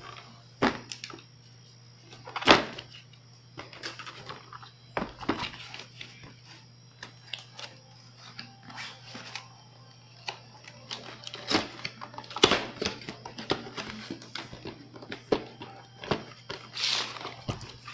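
Cardboard product box and paper being handled on a wooden table: irregular rustling and scraping with sharp knocks and taps. The loudest knock is about two and a half seconds in, and two more come near the middle.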